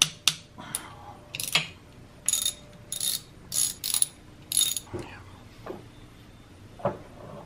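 Metal-on-metal clicking and short rattling clinks as the oil pump mounting bolts are worked loose and pulled from a Gen 3 Coyote 5.0 V8. The clinks come in a quick run of five between about two and five seconds in, with a few lighter single clicks after.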